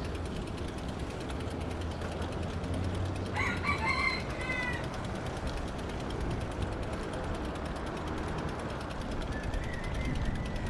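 A single bird call lasting about a second and a half, starting about three and a half seconds in, over steady background noise and a low hum.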